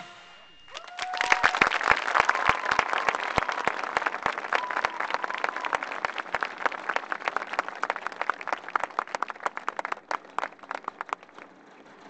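Audience applauding right after the band's music stops. The clapping starts about a second in, stays dense, then thins out and fades near the end.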